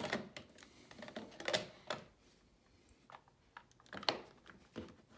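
Ecobee 3 Lite thermostat being pressed onto its wall base plate: a handful of sharp plastic clicks and taps, the loudest about four seconds in.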